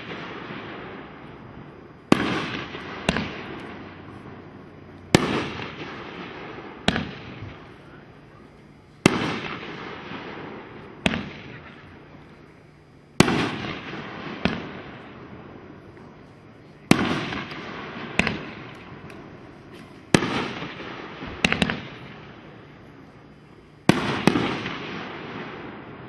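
Red Rhino Atomizer 500-gram firework cake firing single shots, about one every three to four seconds. Each shot is a sharp bang followed about a second later by a second bang, trailing off in a fading rumble.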